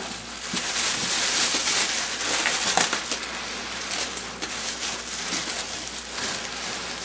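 Plastic wrapping crinkling and rustling as hands grip and pull a foam-packed bundle out of a cardboard box. It is busiest and loudest a second or two in.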